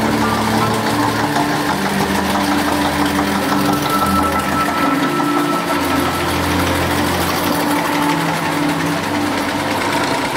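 Old tractor engines running as vintage tractors drive slowly past one after another. The engine note shifts every few seconds as one tractor gives way to the next.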